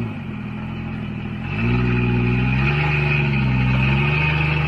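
Jeep Wrangler Rubicon's engine working off-road. The revs drop at the start, climb again about a second and a half in, then rise and fall several times as the throttle changes.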